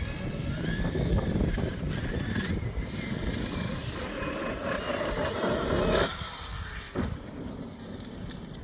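Traxxas X-Maxx RC monster truck running on a dirt track, its brushless electric motor whining and rising in pitch under throttle, then cutting off suddenly about six seconds in, with a single knock about a second later.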